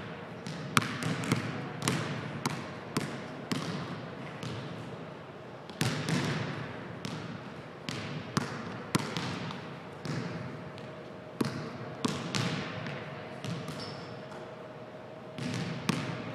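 A basketball being dribbled on a hardwood gym floor, bouncing at an uneven pace with brief pauses, each bounce echoing in the hall.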